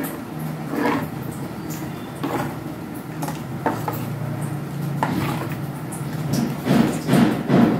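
A steel spoon stirring thin gram-flour batter in a stainless steel bowl, clinking and scraping against the bowl's sides about once a second, loudest near the end.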